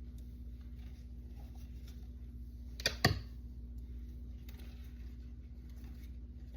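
Packing being handled by hand: faint scattered rustling, with two sharp knocks close together about three seconds in, over a steady low hum.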